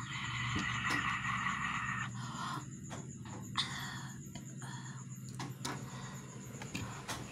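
A woman breathing out hard through her wide-open mouth, panting to cool her tongue from the burn of a very hot chili. One long breathy exhale over the first two seconds or so, then several shorter puffs.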